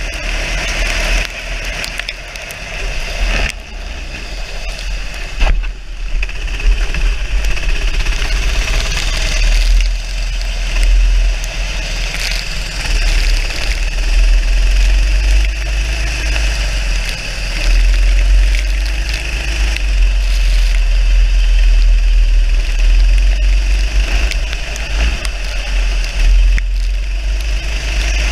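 Racing go-kart engine running steadily at speed, heard from the kart's own onboard camera, with a heavy low rumble of wind on the microphone.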